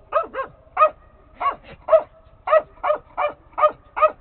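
Finnish Spitz barking in a steady, rapid string of short, high-pitched barks, about three a second.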